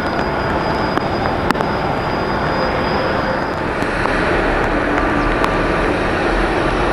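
Jet airliner engines over a steady hiss of rain: a thin high whine fades out about three and a half seconds in, and a deeper rumble builds as a Boeing 737-800 comes in to land.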